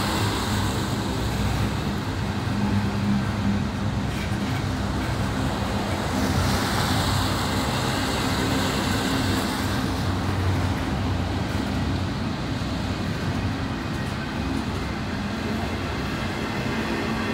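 Steady low rumble and drone of a diesel-hauled freight train moving past, with road traffic swelling past a couple of times over it.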